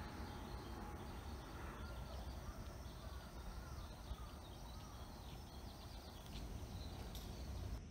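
Quiet outdoor background: a steady low rumble with a few faint bird chirps in the middle.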